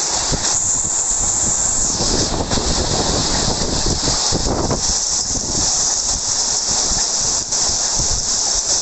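Hail and heavy rain pelting down: a loud, dense, steady hiss with many small knocks of hailstones striking.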